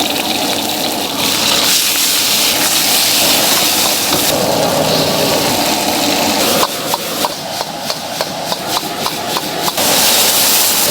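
Wok cooking at a street stall: a loud, steady rush of the burner and frying food, then past the middle a metal ladle strikes the wok about three times a second for a few seconds, each strike ringing briefly.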